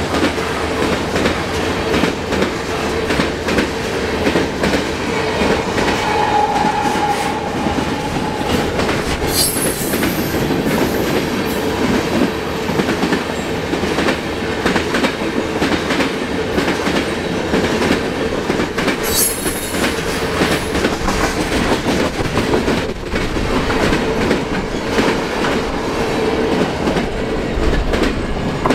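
Freight cars of a CN mixed freight train rolling past close by, their wheels clattering steadily over the rail joints. Two brief high-pitched wheel squeals come through, about ten and nineteen seconds in.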